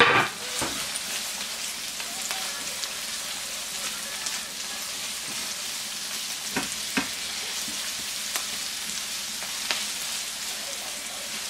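Chopped onions and spring onions sizzling steadily in hot oil in a non-stick frying pan as they are stirred with a spatula, which scrapes and taps against the pan a few times.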